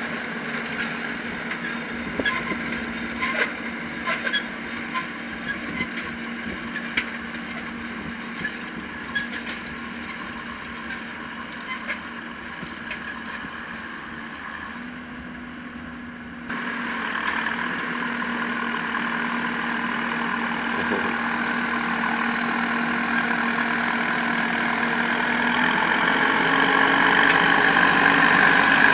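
Diesel engine of a John Deere tractor running steadily as it pulls a seed drill, with scattered faint clicks in the first half; it grows steadily louder over the second half as the tractor comes nearer.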